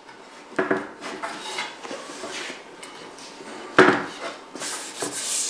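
Support pieces being pushed into place under a table leaf: a few knocks and clatter of wood, the loudest a little before four seconds in, then some sliding and rubbing near the end.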